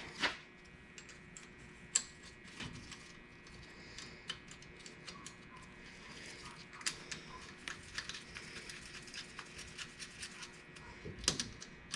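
Irregular light metallic clicks and taps of hand tools and small steel parts as the adjuster-lock bolt is fitted on a Mopar 8.25 differential, with a few sharper knocks near the start, about two seconds in, and near the end.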